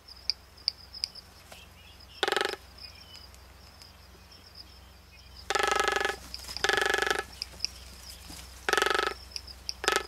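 Male frigatebird at display, its red throat pouch inflated, giving short pulsed drumming calls: one about two seconds in, two in quick succession around six to seven seconds, and another near nine seconds. A steady high insect-like whine runs underneath.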